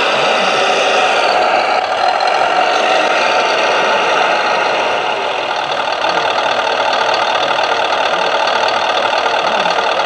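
Hydraulic RC model wheel loader (Volvo L250G) with an electronic sound module playing a steady diesel engine sound, mixed with the whine of its hydraulic pump as the boom lifts the loaded bucket.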